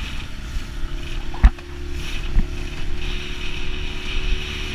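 Small inflatable boat running over choppy sea: a steady low engine drone with wind and water rush, and a sharp slap about one and a half seconds in as the hull hits a wave, with a smaller one about a second later.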